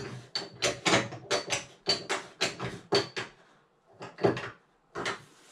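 Plastic wrapping crinkling and rustling in quick bursts, about three a second, as drain parts are handled inside it. It pauses a little over three seconds in, then a few more crinkles follow.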